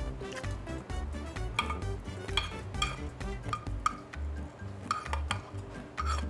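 Metal spoon clinking and scraping against a small bowl, many quick strikes as the last fried rice is scooped out, over background music with a low beat.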